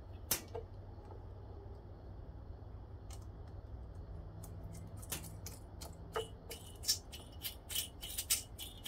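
Metallic clicks and light rattling of small hardware as a nut and lock washer are worked onto a carburetor mounting stud, a few single clicks at first, then a quick run of clicks over the last couple of seconds. A steady low hum runs underneath.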